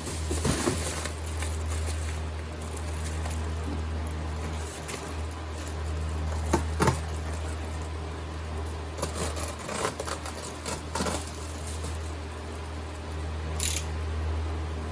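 Steady low hum of a running fan, with scattered clicks and rustles of material being handled.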